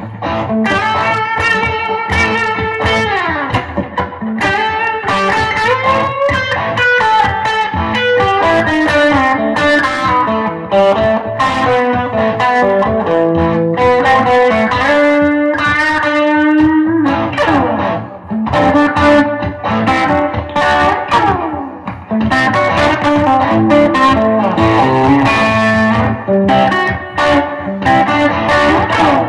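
Danocaster Telecaster electric guitar with a Ron Ellis JL bridge pickup, played amplified: single-note lead lines mixed with chords, with several string bends.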